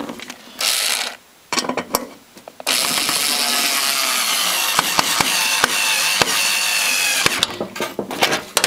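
A few clicks and knocks of handling, then a small electric motor runs steadily for about four and a half seconds, with a faint whine, and stops; more clicks follow.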